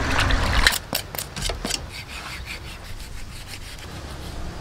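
Water sloshing in a basin as a cow head is scrubbed by hand, cutting off suddenly under a second in; then a knife sawing through raw beef, with a quick run of clicks and scrapes followed by quieter rubbing.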